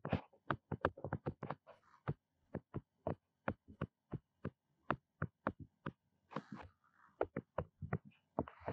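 Plastic stylus tip tapping and scratching on a tablet screen during handwriting: a rapid, irregular run of small taps, about three to four a second, with a few brief scratchy strokes.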